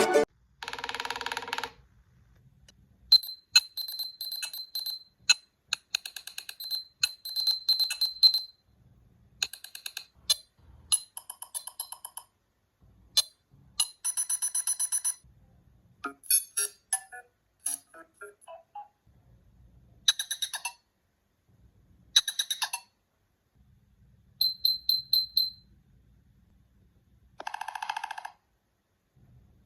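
Nothing Phone (1) glyph ringtones played one after another through the phone's speaker: about ten short electronic patterns of beeps, chirps and clicks, each a second or three long, separated by brief silences.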